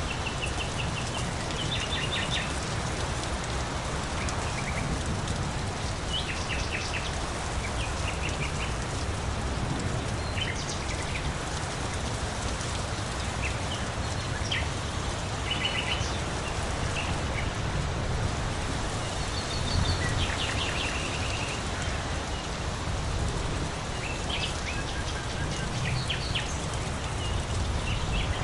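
Steady rain falling, with birds chirping now and then in short, high calls scattered throughout.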